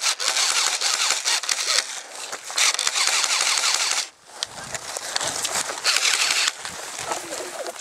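Airsoft electric rifle firing full-auto covering fire in three rattling bursts, each about one to two seconds long.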